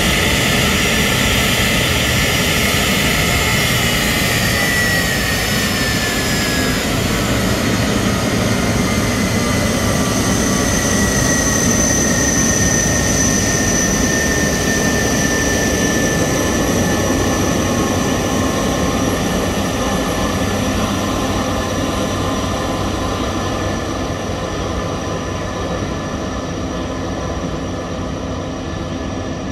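Airbus A300 freighter's twin turbofan engines running as it taxis past: a loud, steady jet roar with high whines, one sliding a little lower in pitch as the aircraft goes by. The sound fades gradually near the end as it moves away.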